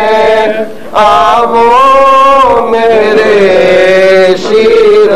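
A man chanting a Shia mourning lament (noha) into a microphone, in long held, gliding notes with brief breaks for breath.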